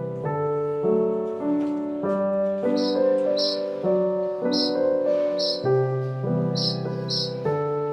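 Background music: a gentle piano-led tune of held notes, with light high percussion ticks, mostly in pairs, coming in about a third of the way through.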